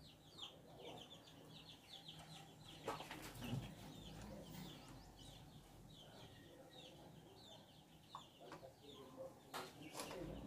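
Faint bird chirping: runs of short, high chirps repeating throughout, with a few light clicks about three seconds in and again near the end.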